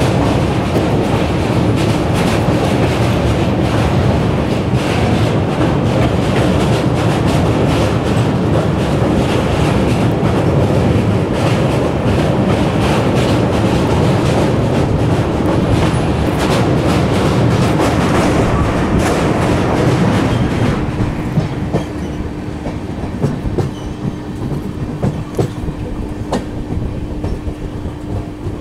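Passenger train coaches rolling over a steel truss bridge: a loud, dense rumble and clatter of wheels on the girder span. About 20 seconds in, as the train comes off the bridge, the noise drops and a steady low hum stands out over quieter wheel noise.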